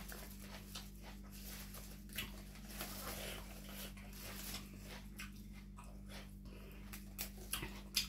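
Close-miked chewing of crisp raw vegetables and herbs: irregular crunches and wet mouth noises, with herb sprigs rustling as they are picked, over a steady low hum.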